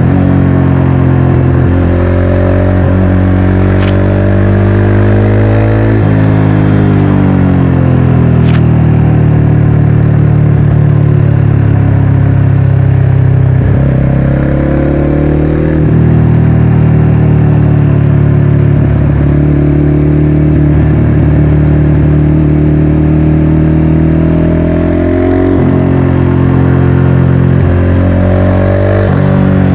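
Motorcycle engine running on the move, its pitch climbing as it accelerates and dropping back at gear changes, several times over. Two brief clicks come in the first ten seconds.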